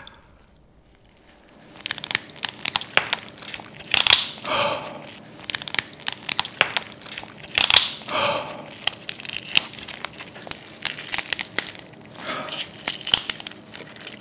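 Soy-sauce marinated raw crab body being squeezed and broken apart in gloved hands: dense crackling and squishing of thin shell and soft meat, starting about two seconds in, with louder crunches now and then.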